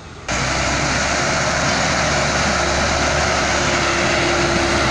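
Sonalika tractor's diesel engine running loud and steady as it pulls a trailer over rocky ground, with a low drone and a faint steady whine. The sound comes in abruptly just after the start.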